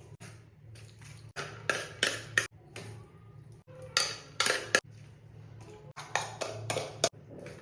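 Metal kitchen utensils clinking and scraping against cookware in a series of short, sharp strokes that come in three clusters.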